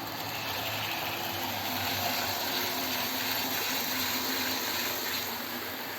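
OO gauge model trains running along the track, a steady whirr of their electric motors mixed with wheel-on-rail noise, a little louder in the middle.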